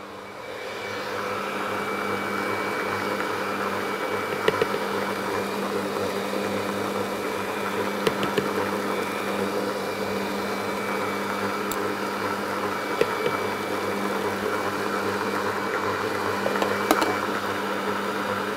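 Electric kitchen mixer running steadily as it whips soft vegan butter in its glass bowl, a steady motor hum with a higher whine over it. It grows louder about a second in, and a few short clicks sound through it.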